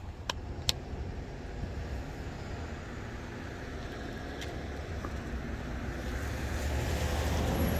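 Street ambience with a steady low rumble of wind on the microphone and a couple of sharp clicks just after the start. A vehicle approaches, growing louder near the end.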